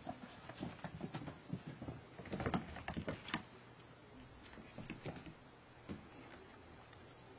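Five-week-old kittens scampering and pouncing on a wooden floor and rug: a scatter of light paw patters and small knocks, busiest and loudest in the middle.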